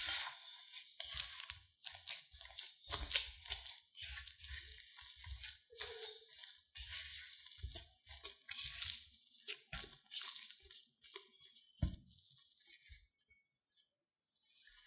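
Silicone spatula stirring mashed potato into corn starch in a glass bowl: irregular crunching, squishing strokes as the starchy dough is worked together, with one sharp knock about twelve seconds in.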